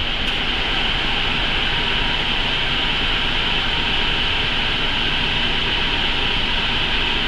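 Exhaust fan blowing air steadily through sheet-metal ducting, a constant rushing noise with a low rumble and a hiss-like band on top. The airflow is what trips the make-up air switch so that it signals the fresh-air damper to open.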